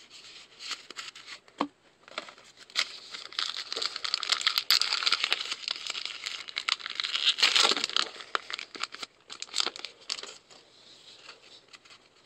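Foil trading-card pack wrapper being torn open and crinkled by hand, a dense crackling rustle that is loudest in the middle stretch.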